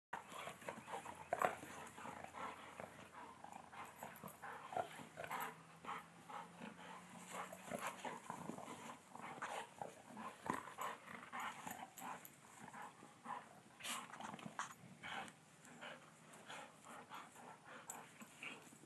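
Two golden retrievers play-fighting, giving short, irregular play growls as they wrestle.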